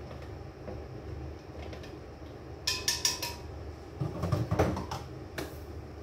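Kitchen dishes and utensils being handled: a few quick clinks with a short ring, like a spoon against a glass, about halfway through, then some duller knocks of things set down on the counter, over a low steady hum.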